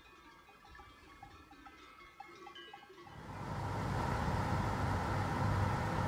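Faint bells clanking in irregular short notes at several pitches, typical of goats' or sheep's bells. About halfway through, the sound cuts to a much louder car driving along a road, a steady low rumble of engine and tyres.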